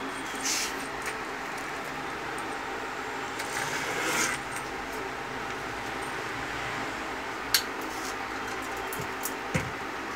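Iron stand parts being handled on a wooden workbench: a couple of short metal scrapes, then two sharp clicks of metal knocking near the end, over a steady background hum.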